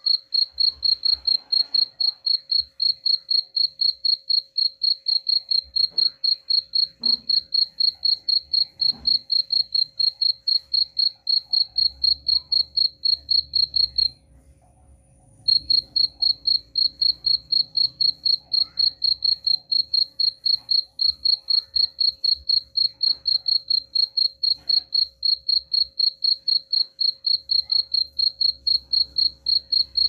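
Cricket chirping in a steady, even rhythm of short high chirps, about three a second. The chirping breaks off for about a second midway and then resumes.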